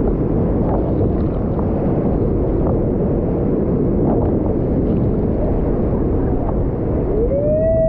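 Whitewater rapids rushing loud and steady around the paddle cat as it runs through the waves. Near the end a person's long whoop rises and holds.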